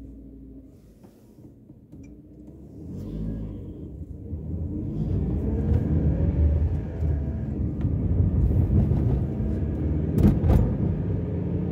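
Car engine idling low while stopped, then pulling away. From about three seconds in, engine and road noise build up steadily, the engine pitch rising as the car accelerates. There are a couple of sharp knocks near the end.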